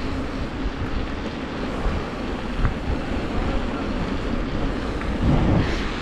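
Wind rushing over the camera microphone and the tyres of a mountain bike rolling on pavement, a steady low rumble with a few faint ticks and a louder swell about five seconds in.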